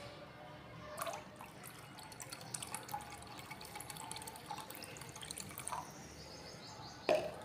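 Water poured from a plastic jug into a glass beaker of solution: a faint trickling and splashing, with a click about a second in and a sharp knock near the end.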